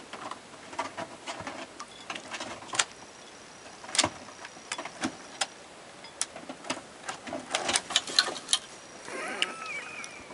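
Irregular sharp taps and clicks, some single and some in quick clusters, with a short wavering squeak-like call near the end.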